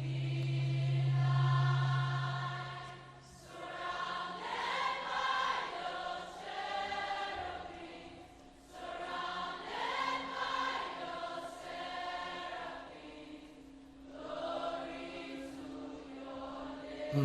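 A group of voices singing a slow worship chant in three long drawn-out phrases, over a steady low held tone.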